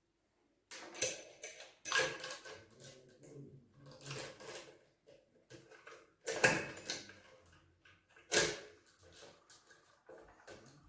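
Chainsaw parts being handled and fitted together during assembly: a string of irregular clicks and knocks of hard plastic and metal, the sharpest about a second in, around two seconds, and twice more in the second half.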